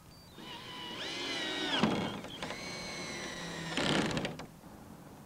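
Cordless drill driving 1¼-inch screws to fasten the wall panel to the base: two runs of motor whine, the first spinning up in pitch and dropping off, the second steady and ending in a short clattering burst as the screw seats.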